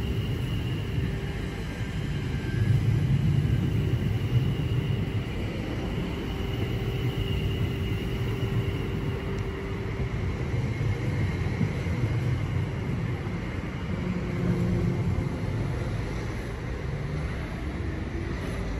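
Greater Anglia Class 720 Aventra electric train pulling out of the platform and running away down the line: a steady low rumble with a faint high electric whine over it.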